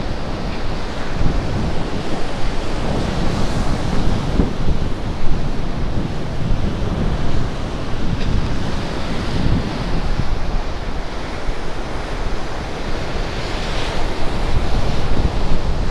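Sea surf breaking and washing against a rocky shore, a continuous rushing wash, with wind buffeting the microphone as a heavy rumble underneath.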